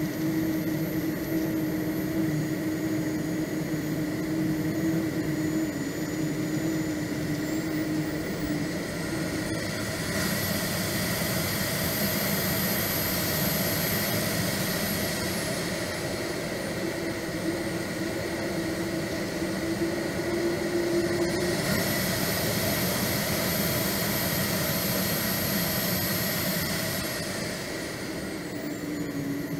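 Swiwin 170B model jet turbine heard from on board the aircraft, its high whine climbing as it spools up about ten seconds in, winding down a few seconds later, then spooling up again about two-thirds through and winding down near the end. A steady rush of noise runs underneath.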